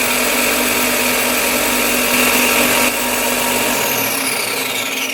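Direct-drive belt and disc bench sander running at full speed with its belt spinning; about three seconds in the motor begins to wind down, its high whine falling steadily in pitch as the belt slows.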